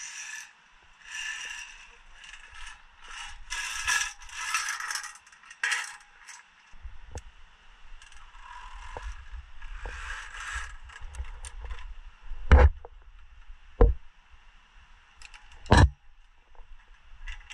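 Via ferrata lanyard carabiners and metal climbing gear scraping and rattling, then three sharp clicks in the second half over a low rumble.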